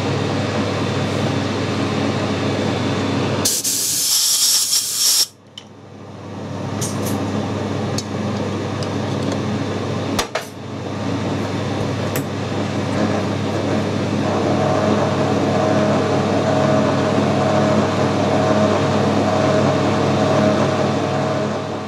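Metal lathe running while a 10 mm reamer is fed through a drilled hole in a spinning bar: a steady mechanical hum, with a higher steady cutting tone that comes in about halfway and grows stronger. A short loud hiss about three and a half seconds in, and a couple of sharp clicks later.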